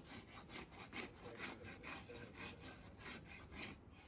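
Farrier's flat hoof rasp scraping back and forth across a horse's bare hoof, about two strokes a second, stopping near the end: the hoof being levelled before a new shoe goes on.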